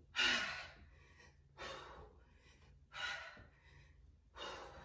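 A woman breathing hard from exertion during a toe-touch ab exercise: four forceful exhales, about one every second and a half.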